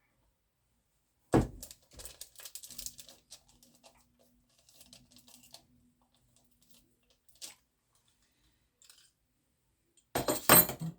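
Metal parts of a Benjamin air pistol being handled and fitted during reassembly: a sharp knock about a second in, scattered small clicks and scrapes, and a loud burst of clicking clatter near the end.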